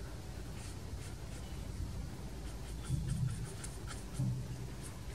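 A round watercolour brush dabbing and dragging on rough watercolour paper, a scatter of faint dry ticks and scrapes as green paint is stippled on for foliage. Two brief soft low thumps come about three and four seconds in.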